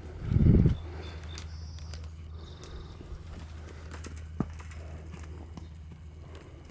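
A wild horse blowing a short, loud snort close to the microphone about half a second in, over a steady low rumble, with one sharp click later on.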